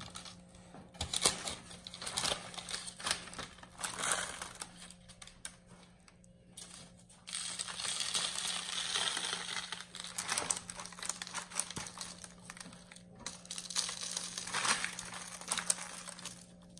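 Hands in nitrile gloves working dry spice rub into a raw pig leg on a wire rack over parchment paper: on-and-off rustling and crinkling of the paper with small scratchy clicks, busier for a couple of seconds past the middle. A faint steady low hum underneath.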